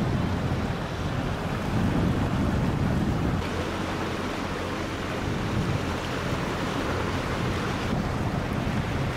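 Wind buffeting the microphone over the steady wash of water aboard a moving sailboat; the rumble is heaviest for the first few seconds and eases abruptly a few seconds in.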